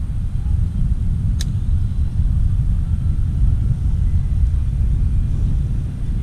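Wind buffeting the microphone: a steady, fluctuating low rumble, with one short sharp click about a second and a half in.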